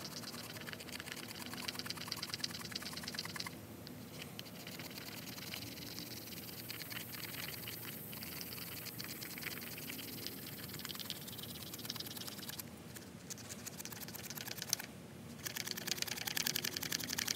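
Back of a Victorinox Fieldmaster's saw blade scraping fatwood into fine shavings: a fast run of short, scratchy strokes, louder in the first few seconds and again near the end, fainter in between.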